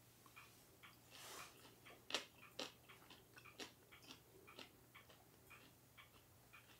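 Faint, steady ticking, about two ticks a second. A brief rustle about a second in and two sharper clicks soon after stand out above it.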